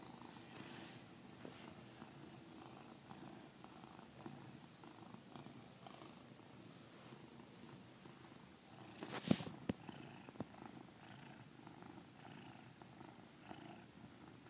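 A pet snoring faintly with a steady, even rasp. A brief sharp knock about nine seconds in, with two small clicks soon after, is louder than the snoring.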